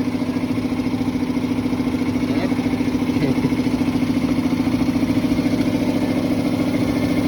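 A motor running steadily with a fast, even pulse and a strong low hum, unchanging throughout.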